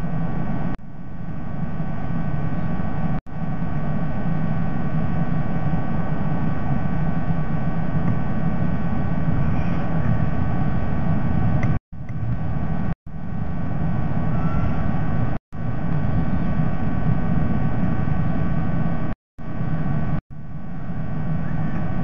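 Steady low rumbling background noise with a faint steady hum, cut by several abrupt brief dropouts to silence, each followed by the noise coming back.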